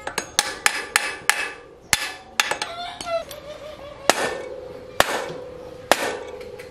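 Hammer blows on the steel frame of a bicycle at the bottom bracket: a quick run of sharp metal strikes, then single blows about a second apart, some leaving a short metallic ring.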